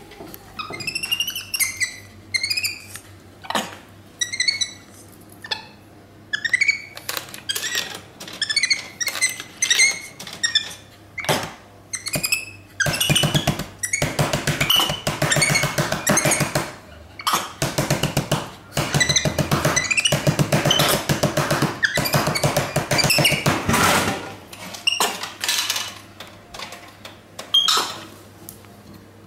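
Capuchin monkey giving a run of short, high, squeaky chirps that rise in pitch, mixed with sharp clicks and knocks. About halfway through come long stretches of loud rasping, buzzing sound, then a few more short sounds near the end.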